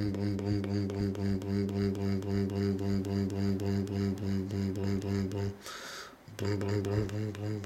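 A person making a motor noise with their voice for a toy quad bike: a steady, low buzzing hum that pulses rapidly. It breaks off briefly about five and a half seconds in, then starts again.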